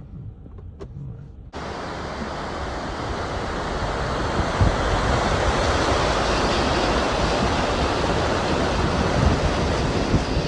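Waterfall rushing in a steady, loud roar that starts abruptly about a second and a half in, with wind gusting against the microphone.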